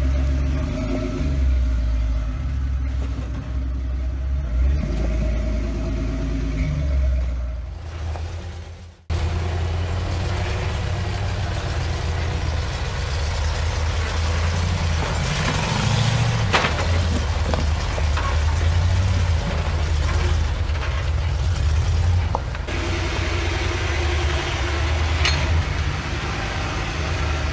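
Engines of off-road 4x4s running at low speed while rock crawling over boulders, with small revs and the odd sharp knock or scrape of tyres and chassis on rock. The sound fades out and cuts off sharply about a third of the way in, then picks up again with another vehicle.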